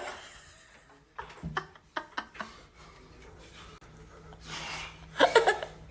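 A person snoring into a microphone: a breathy snore about four and a half seconds in, then a short voiced snort. A few light clicks come near the start.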